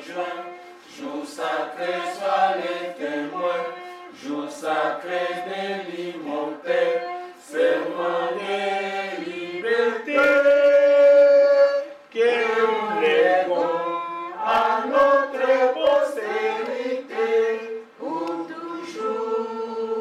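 A group of voices singing together in a choir-like song, holding one long note about halfway through.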